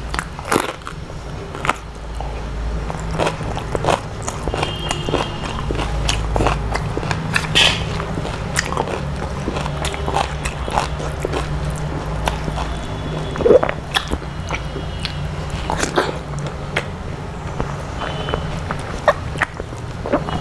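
Close-miked eating by hand: chewing with many wet mouth clicks and smacks, and fingers mixing soaked rice on the plate.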